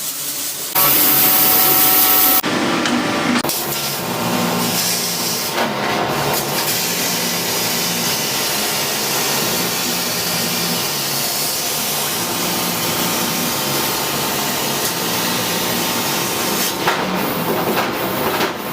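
Steady, harsh noise of power tools working metal, with a much louder hiss for a second or two near the start.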